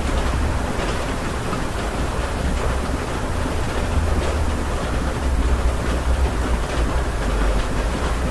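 Steady rain heard from inside a house: an even hiss over a low rumble, with faint scattered patter.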